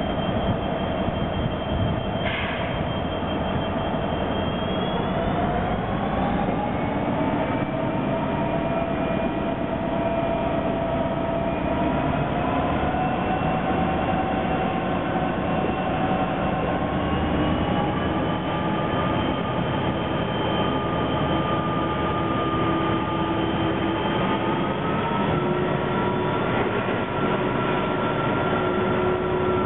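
Pacific National 90 class diesel-electric locomotives working hard as they pull a loaded coal train away from a stand. The diesels run with a steady din, and whining tones climb slowly in pitch as the train gathers speed. A brief high screech comes about two seconds in.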